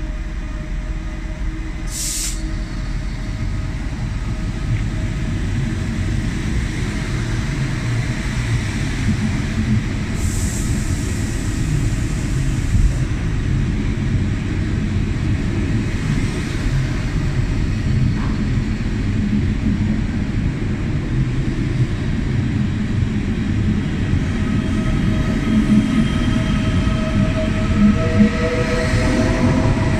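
ICE 3 high-speed train rolling slowly into the platform close by, a steady rumble of wheels and running gear that grows louder as the cars pass. There are two short hisses, about two and ten seconds in, and a faint whine that rises near the end.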